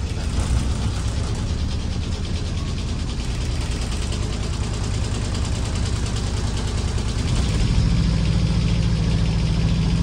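Water taxi's engine running steadily with an even pulse; about three-quarters of the way in it gets louder, with a stronger low hum, as the throttle is brought up while the boat comes in to dock.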